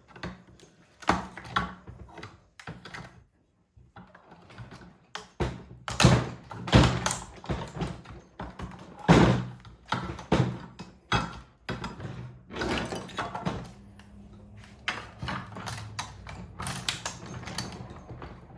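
Irregular knocks, clacks and scrapes of metal parts and tools being handled while a Tesla onboard charger is taken apart, with the loudest knocks in the middle.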